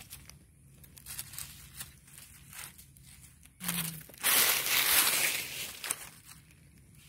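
Dry fallen leaves rustling and crackling as a hand scratches through the leaf litter for fallen coffee cherries: light scattered crackles at first, then a loud rustle lasting about two seconds, a little after halfway.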